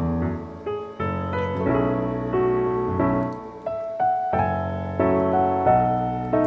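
Background piano music: sustained chords and melody notes, each struck and fading, changing every half second to a second.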